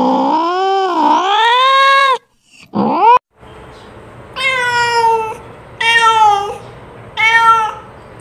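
Orange-and-white domestic cat meowing. One long drawn-out meow wavers down and back up in pitch and ends about two seconds in. A short rising call follows and cuts off abruptly, then three shorter meows come in the second half.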